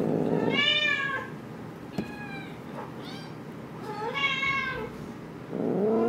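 Kitten meowing repeatedly while a hand holds it down: about five drawn-out meows, the loudest just after the start and again near the end, with fainter ones in between. A single soft click sounds about two seconds in.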